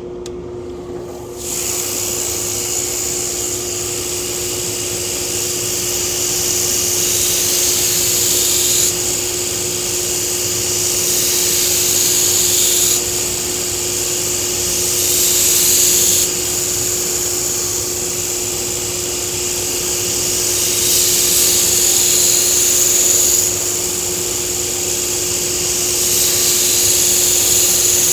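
Belt grinder running with a steady hum while a nakiri blade is ground against a 120-grit belt. The hissing grind starts about a second and a half in and swells and eases over a series of passes every few seconds.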